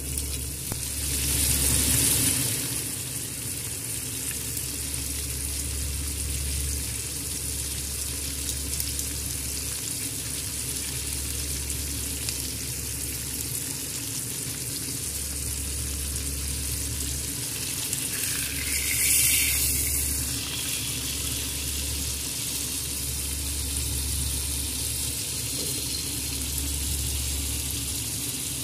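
A Wagyu New York strip steak sizzling in hot fat in a frying pan alongside garlic cloves, with a steady hiss. The sizzle swells louder twice, about two seconds in and again about nineteen seconds in.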